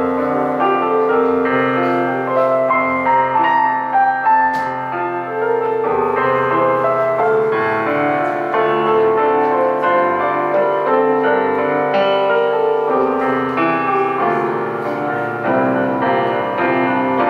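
Stage keyboard playing in a piano voice, with acoustic guitar alongside, in a slow instrumental passage without singing.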